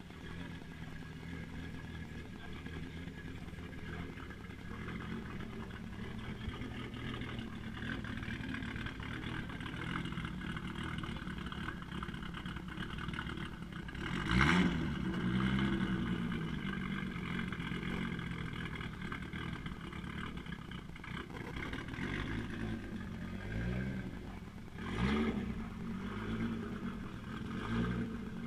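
Car engines running, with one engine revving up and dropping back about halfway through, and revving again a couple of times near the end.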